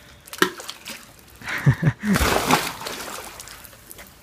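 A dog splashing into a swimming pool about two seconds in, then water sloshing as it settles.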